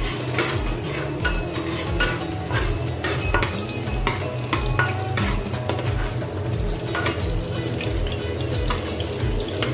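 Metal spatula scraping and tapping a frying pan as chopped garlic is stirred in sizzling hot oil, frying toward golden brown. A low pulse about twice a second runs underneath.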